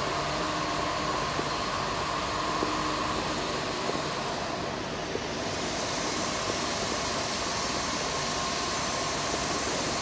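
Steady mechanical hum and hiss with a faint high whine running through it. There are no distinct knocks or events; the hiss grows a little brighter about halfway through.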